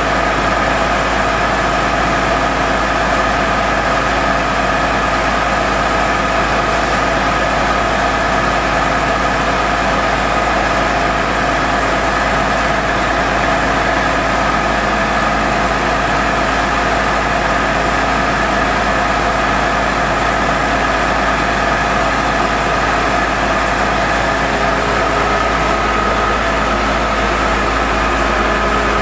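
Truck-mounted core drilling rig running steadily, with several steady high tones over the low hum of its engine.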